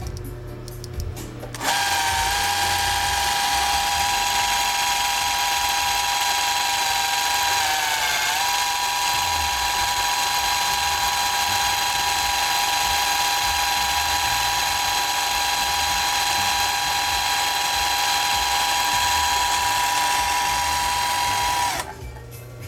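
Singer 20U33 industrial zigzag sewing machine running at a steady high speed with a motor whine, starting about two seconds in; its pitch dips briefly about a third of the way through, then it runs on and stops just before the end.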